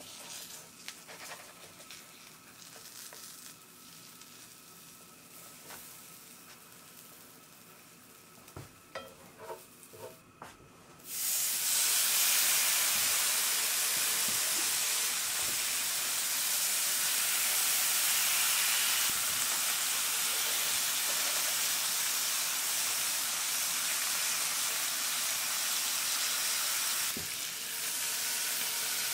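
A few light clicks and knocks, then about eleven seconds in a sudden loud sizzle starts and runs on steadily: pancake batter frying in a hot pan.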